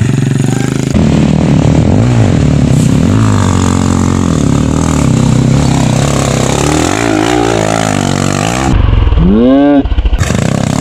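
Yamaha YZ 125 two-stroke dirt bike engine revving up and down under load as it climbs a steep rocky trail. Near the end the revs rise sharply in one long sweep.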